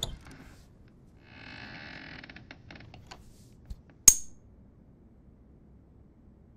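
A short, rattly creak and a few light clicks, then one sharp, loud click about four seconds in: an old-style push-button light switch pressed to turn the room light on.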